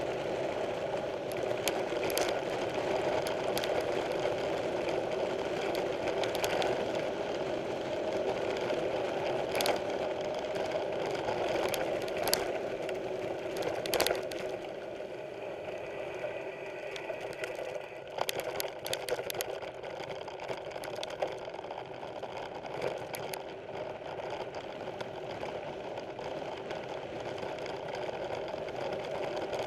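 Mountain bike rolling over a rough dirt trail: steady tyre noise with the frame and parts rattling and clattering over bumps, with sharp knocks here and there. It eases off a little about halfway through.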